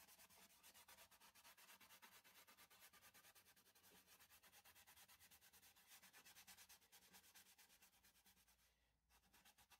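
Faint, quick, even rubbing of a shellac-soaked cloth pad against the wooden surface of a turned macrocarpa pine bowl, working the shellac in to stiffen the fibres for sanding. The rubbing drops away briefly about nine seconds in.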